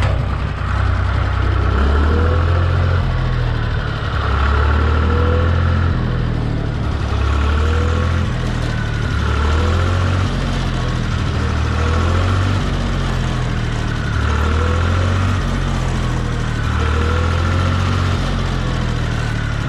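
Tractor engine running, its note and load rising and falling every second or two.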